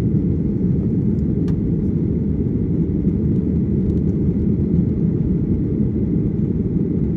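Steady, deep roar of a jet airliner's engines during take-off and climb.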